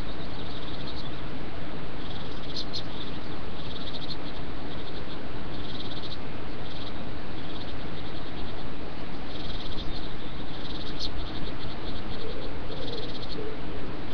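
Female great tit hissing in short rasping bursts, about once a second, her defensive threat display at the nest. Under it runs a steady loud hiss of microphone noise.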